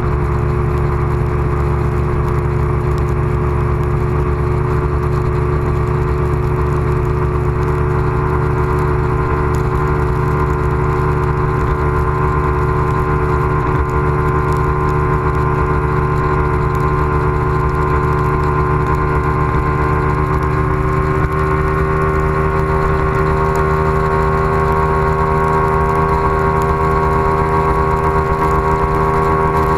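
Bass boat's outboard motor running at speed, a steady engine tone that climbs slightly in pitch about two-thirds of the way through, over a strong rush of wind and water.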